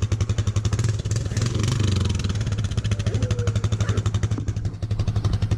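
ATV engine idling with an even, rapid pulse.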